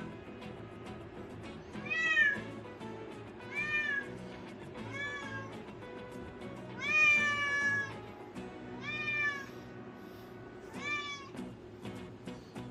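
Domestic cat meowing six times, a call every second and a half to two seconds, each meow rising and then falling in pitch; the fourth, about seven seconds in, is the longest and loudest. Background music plays steadily underneath.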